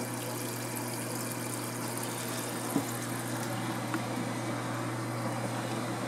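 Laundry Alternatives second-generation compact washing machine draining: its drain pump runs with a steady hum while wash water is pumped out through the drain hose at the start of the spin cycle. There are a couple of faint ticks about three and four seconds in.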